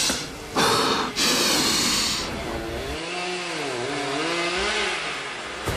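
Two-stroke chainsaw engine revved hard twice in quick succession. This is followed by a quieter stretch holding a lower sound that wavers up and down in pitch.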